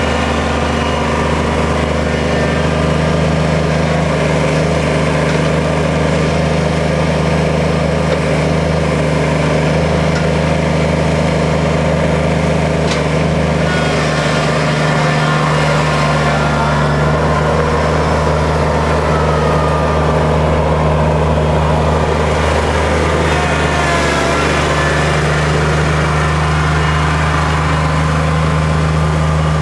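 Kubota tractor's diesel engine running steadily. A few faint whines rise and fall over it in the middle.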